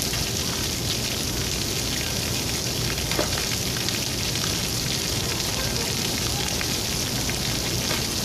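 Steady hiss of cold water falling and spraying down, with a small click about three seconds in.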